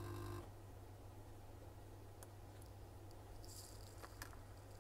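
A steady electrical hum from bench equipment cuts off suddenly about half a second in. After that there are a few faint ticks and clicks of small tools being handled, and a brief high hiss near the end.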